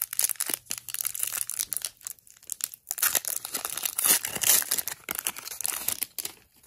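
Foil wrapper of a Magic: The Gathering Commander Legends collector booster pack crinkling in the hands, then torn open, loudest a little past the middle.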